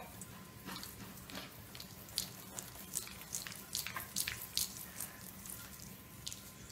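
Irregular light clicks and taps on a hardwood floor, several a second at the busiest, from a small animal scrabbling and a hand moving quickly over the boards.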